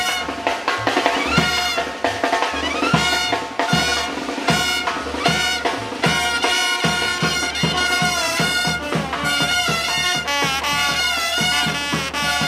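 A murga brass band playing: trumpets and other brass carry the tune over a steady beat of drums and percussion, with wavering held notes near the end.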